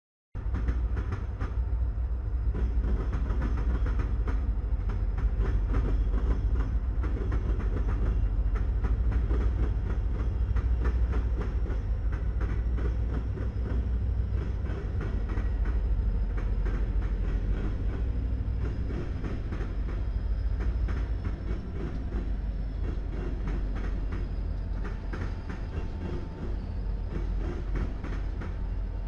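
Diesel locomotives and freight cars rolling past at close range: a steady low engine rumble with many wheel clicks over the rail joints. The sound cuts in abruptly at the very start.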